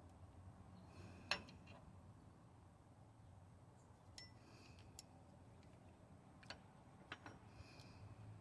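Near silence with a handful of faint metallic clicks and clinks as a metal A/C refrigerant line fitting is unscrewed by hand and pulled off a truck's receiver-dryer. The sharpest click comes about a second in.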